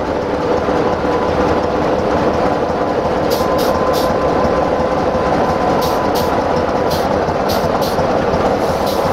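LDH1250 diesel-hydraulic shunting locomotive running as it creeps up to coaches for coupling, with a steady whine over the engine noise. Short clicks come in from about three seconds in.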